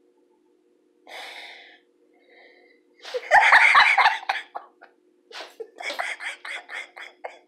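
A person laughing: a breathy gasp about a second in, then a loud burst of laughter around the middle, trailing off into quick, repeated short laughs.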